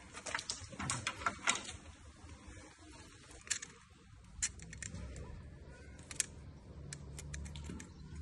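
Light clicks and rattles of measuring tools being handled: a spirit level and a metal tape measure. A quick run of sharp clicks comes in the first two seconds, a few more around the middle.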